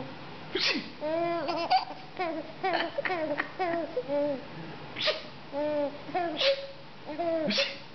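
Twin babies laughing in quick giggling runs of high little voice pulses, each run set off by a short, sharp sneeze-like 'choo' from their father, about four times.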